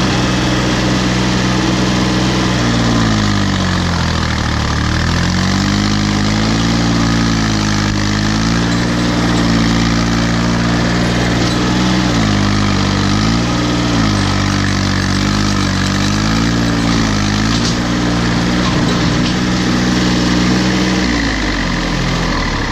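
Case 235 compact tractor's three-cylinder diesel engine running as the tractor is driven. Its speed sags and picks back up several times, then drops lower near the end.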